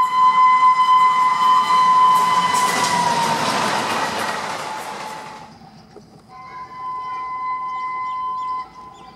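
Double-headed ALCo diesel locomotives passing: a loud held horn whose pitch drops slightly as the locomotive goes by, giving way to the rush and clatter of the train, which cuts off about five and a half seconds in. Then a second, quieter horn blast lasts about two seconds and stops suddenly near the end.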